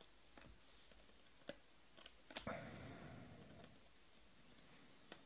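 Faint clicks and ticks of glossy Panini Prizm trading cards being flipped through by hand, about half a dozen in all, with a soft rustling noise lasting about a second midway through.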